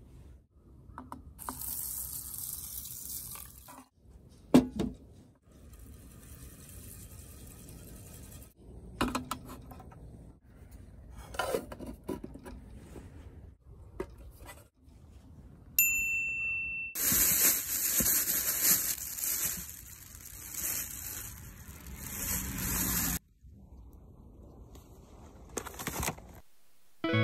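Aluminium mess tin and its lid being handled while rice is cooked: water poured over the rice, metal clinks and knocks, a loud knock about four seconds in. Near the middle comes a short high beep, then a loud steady hiss for about six seconds.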